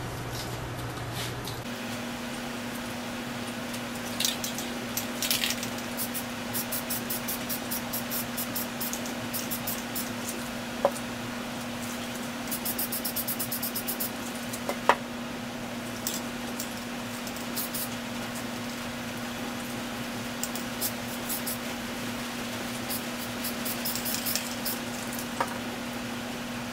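Aerosol spray-paint cans being shaken, their mixing balls rattling in runs of clicks that are fast in the middle, between short hisses of spray and a few sharp knocks of cans set down, over a steady low hum.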